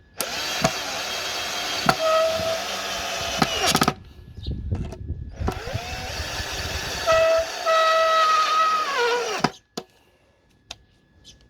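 Makita DF347DWE cordless drill-driver driving wood screws: the motor whines in two runs of about four seconds each, its pitch falling as it winds down at the end of each run.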